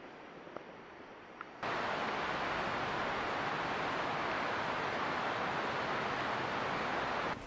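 Loud, steady rush of flowing water, like a mountain river or stream, starting abruptly about a second and a half in and cutting off sharply near the end; before it, a fainter steady hiss.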